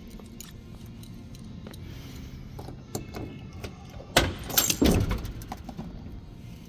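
Keys jangling on a ring as a key goes into the trunk lock of a 1967 Ford Mustang coupe. The trunk latch releases with a sharp click about four seconds in, followed by a louder clatter as the trunk lid comes up.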